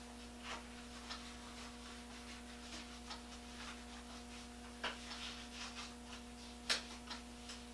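Scattered light clicks and taps of small metal parts being handled on a workbench, over a steady electrical hum; the sharpest clicks come about five seconds in and near seven seconds.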